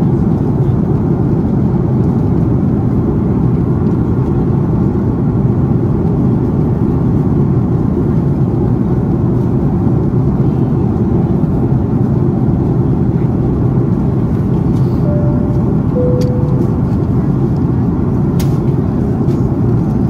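Cabin noise of an Airbus A330-200 with Pratt & Whitney PW4000 turbofans in flight: a steady, deep rush of airflow and engine noise at an even level. About fifteen seconds in, two short tones sound, the second a little lower.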